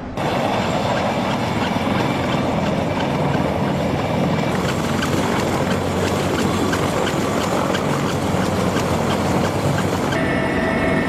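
CH-53E Super Stallion heavy-lift helicopter running on the ground, its turbine engines and turning rotor making a loud, steady din. Near the end a clearer, higher turbine whine comes in.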